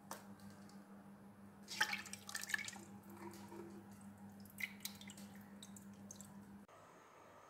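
Buttermilk dripping and splashing back into a steel vessel as a hand lifts and squeezes a lump of freshly churned butter out of it: a run of drips about two seconds in and a few more about four and a half seconds in. A faint steady hum runs underneath and cuts off near the end.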